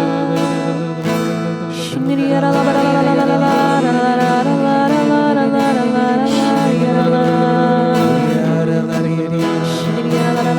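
Slow worship music: acoustic guitar strumming under a voice singing long, held notes.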